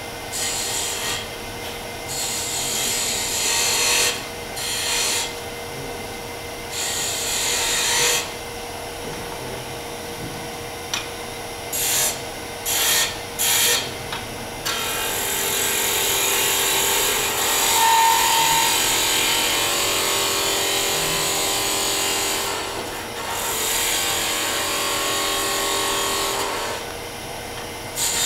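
Chisel cutting a spinning wood spindle on a lathe in repeated passes: a hissing scrape that comes and goes, with a few quick short cuts around the middle and a longer continuous cut after them. The lathe motor hums steadily underneath.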